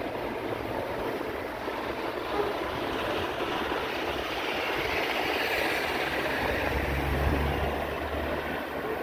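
Steady rushing road and wind noise of a bicycle ride through city traffic, with a low motor-vehicle engine hum passing close from about six and a half to eight and a half seconds in.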